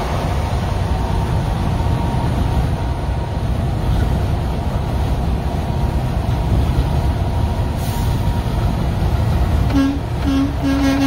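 Steady low road and engine rumble of a vehicle driving, heard from inside it. Near the end a truck horn sounds: two short blasts, then a longer third.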